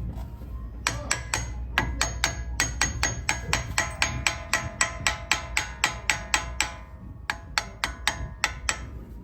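A hammer striking metal brake parts rapidly and repeatedly, about three to four blows a second, each blow ringing, with a brief pause near the end.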